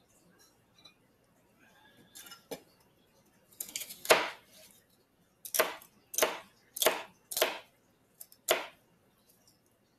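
Kitchen knife chopping celery on a cutting board: a string of about six sharp chops in the second half, irregularly spaced, the loudest a little after four seconds in, with a few fainter knocks before them.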